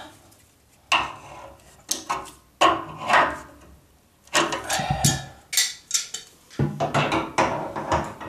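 Irregular metallic clicks and clanks of water pump pliers and grips on a radiator valve's brass union nut as it is tightened back onto the radiator, some with a short ring.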